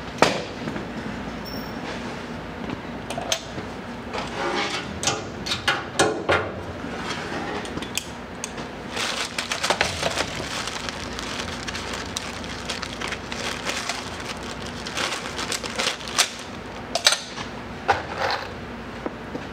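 Scattered clicks, knocks and rattles of hand work with metal parts, in clusters, over a steady low hum.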